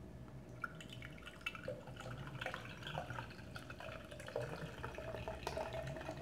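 Carbonated soda being poured into a large cup, fizzing with a crackle of tiny bubble pops.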